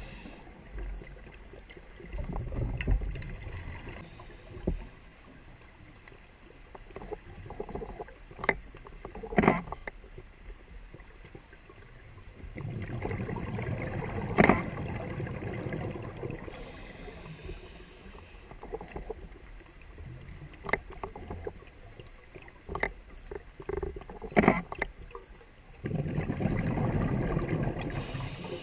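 Scuba breathing heard underwater through a regulator: three long rumbling bursts of exhaled bubbles, with a brief high hiss of an inhale between them, and scattered sharp clicks.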